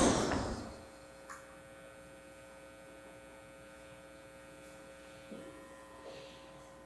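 Steady low electrical mains hum, with a loud noise dying away in the first half-second and a few faint soft knocks later on.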